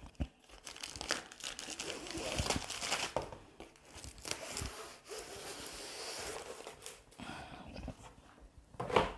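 Cardboard box and plastic packaging being handled and opened: irregular rustling and crinkling with small knocks as a rolled canvas and a plastic bag of tools are pulled out and laid down, with a short louder burst of noise near the end.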